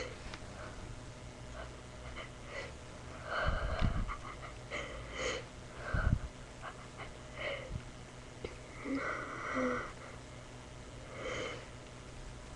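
A person's sharp, wheezy breaths and sniffs as a sneeze builds from a cat hair held in the nose, several false starts without the sneeze coming; the strongest is about three to four seconds in.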